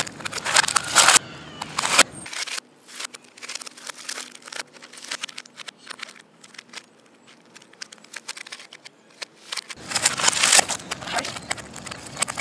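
A white plastic MacBook being smashed: hammer blows, cracking and crunching plastic and metal, and pieces breaking apart and scattering on asphalt. The impacts come in dense, loud clusters in the first two seconds and again near the end, with lighter scattered knocks and clicks between.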